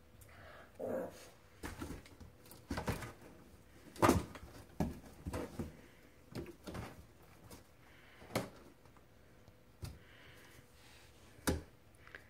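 Irregular knocks and scrapes on a cardboard box as cats paw and bump at it, the loudest knock about four seconds in.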